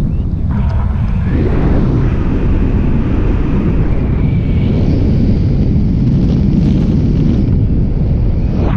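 Wind buffeting an action camera's microphone on a paraglider in flight: a loud, steady rumble of airflow, its tone shifting abruptly a few times.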